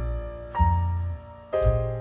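Background music: slow piano-like keyboard chords over a deep bass, with a new chord struck about half a second in and another near the end.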